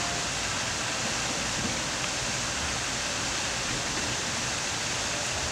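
Steady, even rushing hiss with no breaks or events.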